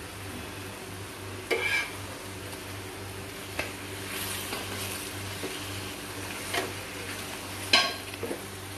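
Wooden spatula stirring banana slices through hot, bubbling sugar caramel in an enamel pan, with a low steady sizzle. A few sharp knocks and scrapes of the spatula against the pan come through, the loudest near the end.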